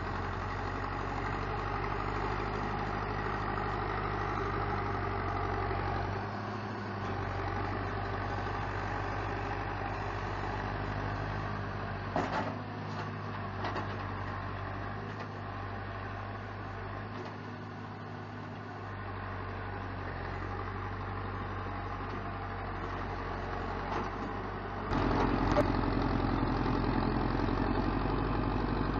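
Zetor 7340 Turbo tractor's turbo diesel engine running steadily as it pulls a loaded trailer through deep mud, with a brief knock about twelve seconds in. The engine gets louder about twenty-five seconds in and stays louder.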